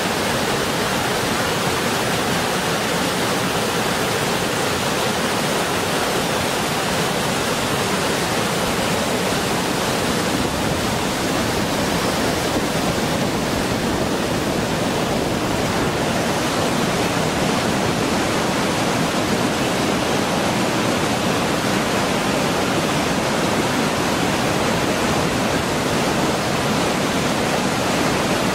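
Waterfall in full spate after heavy rain: a steady, loud rush of falling and churning water.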